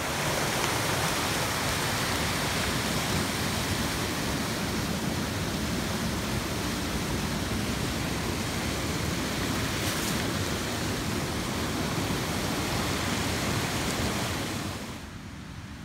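River rapids rushing steadily over rocks, an even noise with no tones; it drops noticeably about a second before the end.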